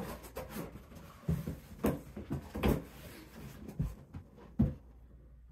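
Cardboard box being handled, its flaps pushed shut: about five dull thumps and knocks, the loudest near the middle and about four seconds in.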